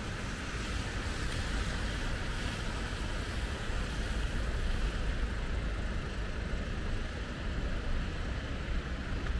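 Steady hiss of falling rain with a low rumble of city traffic underneath.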